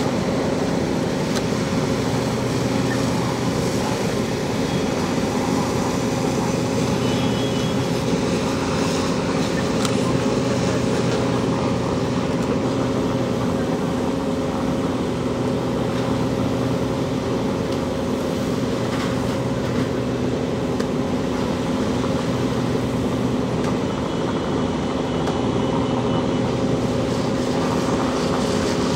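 An engine running steadily at one constant speed: a continuous drone with a fixed hum that does not rise or fall.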